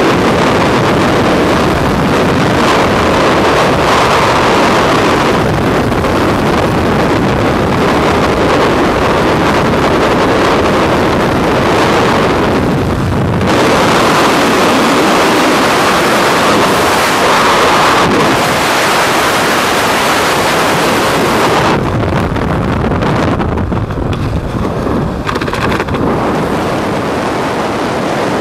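Freefall wind rushing over a skydiver's helmet camera: a loud, steady rush of air. About 22 seconds in it thins out, losing its hiss.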